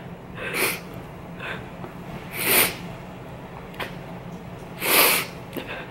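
A person sniffling from crying: three hard sniffs about two seconds apart, with quieter sniffs and breaths between.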